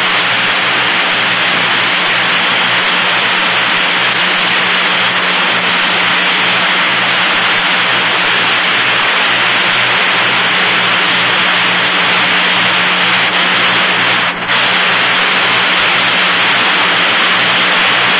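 Steady radio-channel hiss on an open NASA communications loop between transmissions, with a low buzzing hum underneath. The hiss dips briefly about fourteen seconds in.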